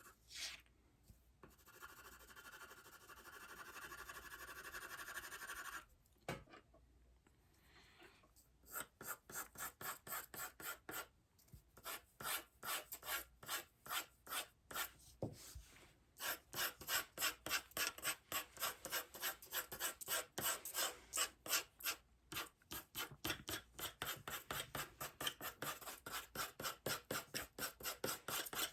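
A drawing tool scratching on sketchpad paper. It makes one long steady shading stroke lasting a few seconds, then, after a pause, a run of quick back-and-forth hatching strokes at about three to four a second.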